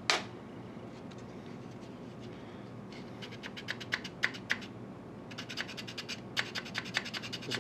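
A small hand file scraping the corner of a plastic model locomotive shell in short, quick strokes. The strokes start about three seconds in, sparse at first, then come fast and close together. There is one sharp click at the very start.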